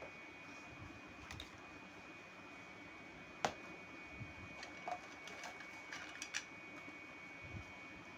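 Sparse light clicks and taps of small plastic toy-kitchen pieces being handled, the sharpest about three and a half seconds in and a few smaller ones near five and six seconds, over a faint steady hiss with a thin high whine.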